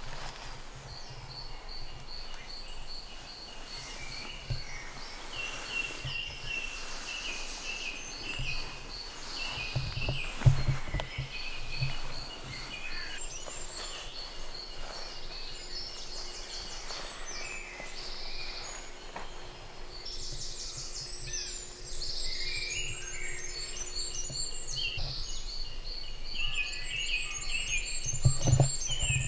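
Morning chorus of several songbirds singing at once, overlapping phrases of short repeated high notes. A couple of low thumps come about a third of the way in and near the end.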